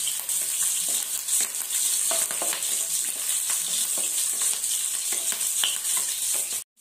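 Green chillies and onion slices sizzling in hot oil in a non-stick kadai, with the scrapes and light taps of a wooden spatula stirring them. The sound cuts out completely for a moment near the end.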